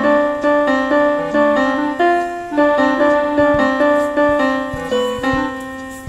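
Global GL444 electronic keyboard played: a slow melody of single notes, about two a second, over a lower note, read from sheet music.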